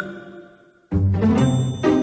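Background music: a note fades out into a short break, then the music starts again just under a second in with a steady bass line and a high ringing tone above it.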